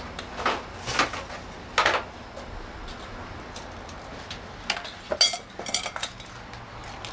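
Sharp metallic clinks and rattles of a key and small metal objects handled on a counter: single clinks in the first two seconds, then a quicker flurry of clinks about five seconds in.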